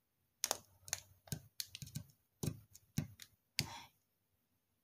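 Light, irregular clicks and taps from a crystal wind chime light catcher being handled, about nine in the first three and a half seconds.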